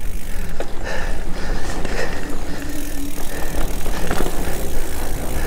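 Mountain bike rolling fast along a sandy dirt singletrack: tyre noise on the trail with a few short rattles and knocks from the bike over bumps, under a steady low rush of wind on the microphone.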